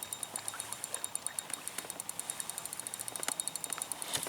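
Fishing reel clicking in a fast, even series of about eight sharp ticks a second while a big hooked steelhead is being played.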